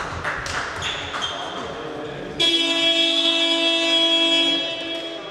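Basketball game buzzer sounding one loud, steady blare for about two and a half seconds, starting about halfway through. Before it, sneakers squeak on the court.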